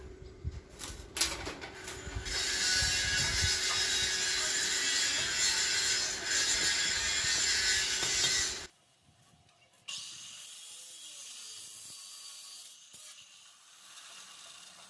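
Metalworking in a workshop: a few clicks and knocks, then about two seconds in a steady, loud rasping noise from a tool working metal. It cuts off abruptly about six seconds later and, after a brief pause, gives way to a quieter steady hiss.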